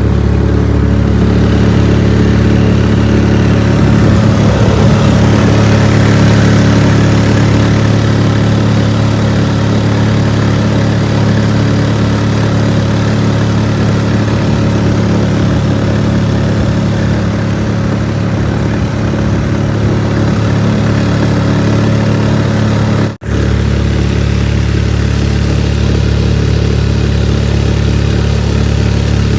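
Steady drone of a vehicle's engine and road noise while driving, with a brief break about 23 seconds in where the sound cuts out and resumes.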